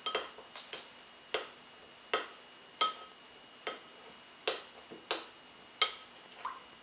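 A spoon clinking against a glass mixing bowl while stirring cornflour and pineapple juice: sharp ringing clicks at a slightly uneven pace, about one every three-quarters of a second, as the spoon strikes the bowl on each turn.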